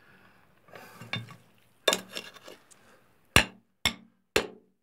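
A hand-held steel tool chipping at decomposing bedrock. First a few soft scrapes and a strike about two seconds in, then three sharp metal-on-rock clinks about half a second apart near the end.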